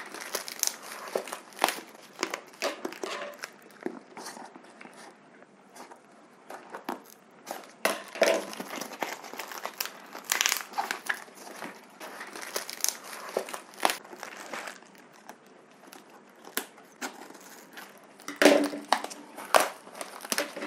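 A cardboard box and its brown paper wrapping being torn open and crumpled by hand, in irregular crackling, tearing bursts with short pauses in between.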